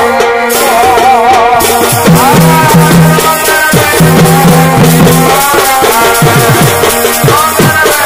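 Live Purulia Chhau dance music: a wavering reed-pipe melody over pitched drum strokes that slide down in pitch, with a rattling percussion layer. The drum strokes come thicker and faster in the second half.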